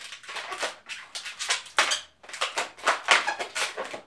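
Latex modelling balloon squeaking and rubbing as it is twisted and its sections locked together, an irregular run of short squeaks.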